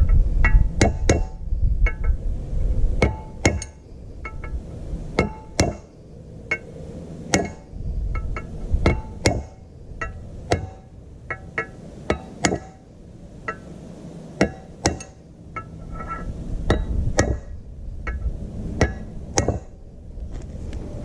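Hammer tapping a bearing into the rear cover of a tractor's power take-off: a long run of irregular sharp metal taps, about one or two a second, each ringing briefly, as the bearing is driven home.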